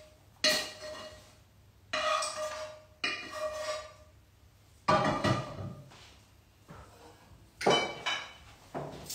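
Ceramic dishes being knocked and set down, clattering about six times with short clinking rings.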